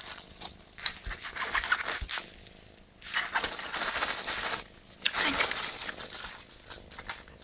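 Plastic bag crinkling and rustling in three bursts of crackly noise as a cat plays with it.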